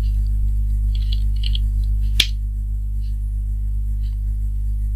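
Steady electrical mains hum on the recording, with a few faint computer-keyboard keystrokes and one sharper key click about two seconds in.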